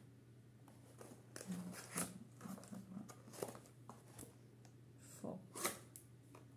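Paper and packaging being handled and rummaged through: a run of short rustles, crinkles and sharp clicks, the loudest snap near the end, over a steady low hum.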